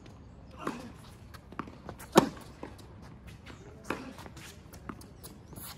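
Tennis ball being struck back and forth by rackets in a rally on a hard court, a sharp pock every one and a half to two seconds. The loudest is the close racket hit about two seconds in, with another close one at the very end, and fainter ticks in between.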